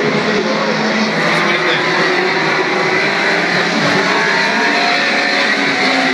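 Engines of historic Grand Prix racing cars at speed on the circuit, their engine notes rising and falling in pitch as they accelerate and change gear.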